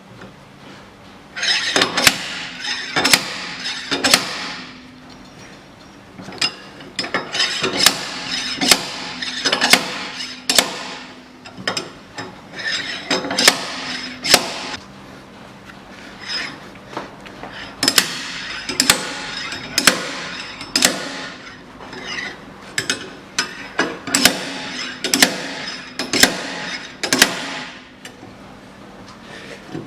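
Slide hammer bolted to a car's rear wheel hub, its weight slammed back against the stop again and again to drive the hub off the axle. Sharp metallic clanks with a ringing tail come about one a second in four runs of strikes with short pauses between.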